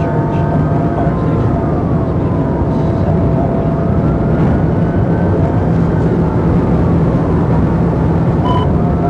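Police cruiser driving fast, with a steady drone of engine and tyre noise and a siren wailing slowly up and down behind it.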